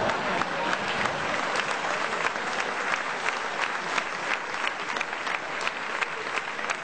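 Audience applauding: many hands clapping, with sharp individual claps standing out over a steady wash.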